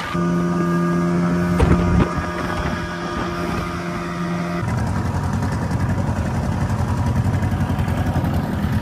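35-horsepower tiller outboard motor running flat out at a steady high pitch, the boat at top speed of about 30 mph with the engine maxing out its propeller, with two thumps in that stretch. A little over four and a half seconds in it is throttled back and drops to a low, uneven rumble.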